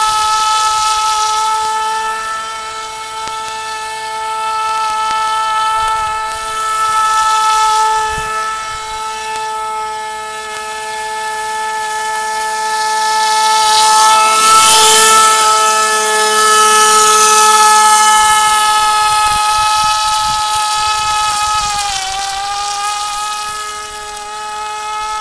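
Radio-controlled model boat's motor and propeller running at speed: a steady high whine with several overtones, loudest a little past the middle, with a brief dip in pitch near the end.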